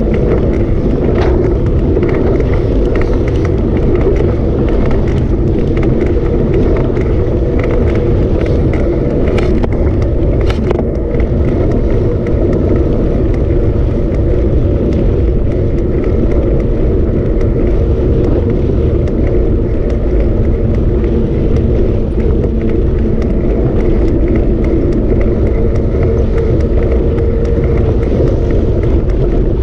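Steady, loud rumble and drone of a moving vehicle, with a few brief clicks or knocks in the first ten seconds or so.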